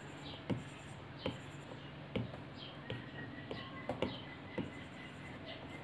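Apple Pencil tip tapping and stroking on an iPad Pro's glass screen while drawing: short irregular taps, about one or two a second, over a faint steady hum.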